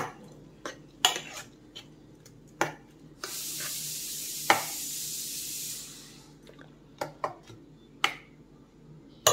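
Steel ladle stirring a wet mix of chopped ridge gourd, tomato and onion in a pressure cooker, with scattered clicks and scrapes of metal on metal. A steady hiss runs for about three seconds in the middle.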